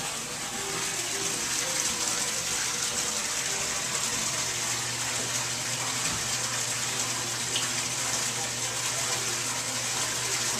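Aquaponics auto-siphon draining the grow bed: water pours steadily from a PVC elbow outlet into the fish tank below. A steady low hum runs underneath.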